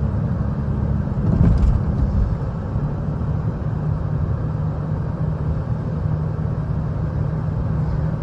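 Lexus GS300 driving: a steady engine and road drone whose engine note steps down slightly a couple of seconds in.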